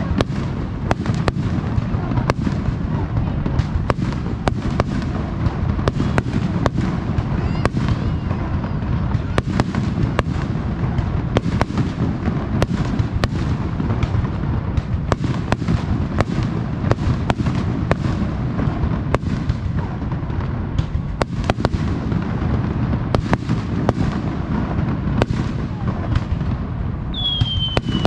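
Aerial fireworks display, with many shells bursting in quick succession: a dense run of sharp bangs over a continuous low rumble. Near the end a single whistle glides downward in pitch.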